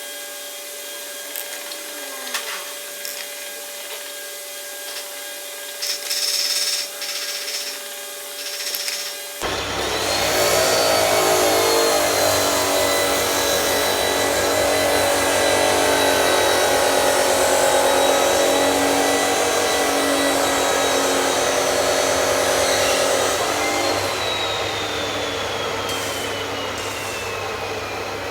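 A power tool's electric motor spins up about ten seconds in, runs at a steady high whir, then winds down with a slowly falling pitch near the end. Before it, only quieter workshop sounds.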